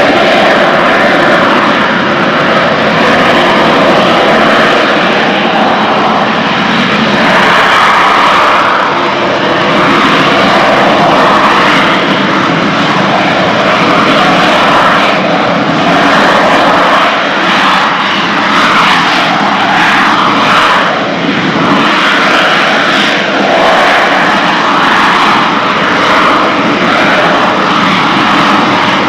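AV-8B Harrier II's Rolls-Royce Pegasus vectored-thrust turbofan holding the jet in a hover: loud, steady jet noise with a faint whine running through it.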